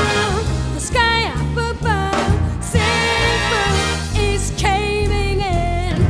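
A song: a singing voice holding notes and sliding between them, over a steady bass line and beat.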